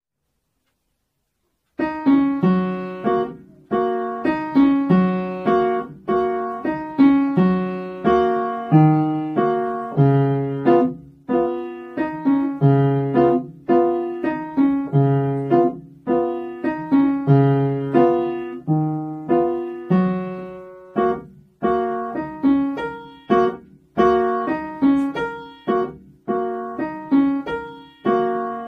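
A young child playing an acoustic upright piano: a simple beginner's piece of clear, separate struck notes and chords, each dying away, in a steady repeating pattern. The playing starts about two seconds in.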